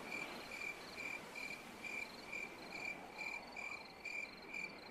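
Cricket chirping in a steady, even rhythm of about two chirps a second, each a short high pitched pulse, over a faint night hiss.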